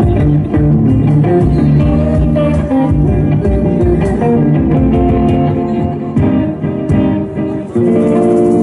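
Live band playing an instrumental passage led by guitar over bass and drums. About eight seconds in it settles on one held, ringing chord, the closing chord of the song.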